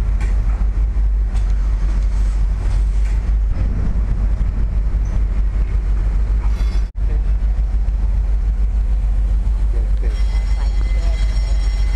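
Steady, loud low rumble on a river car ferry's deck: the ferry's machinery running, with wind on the microphone. It cuts out briefly about seven seconds in.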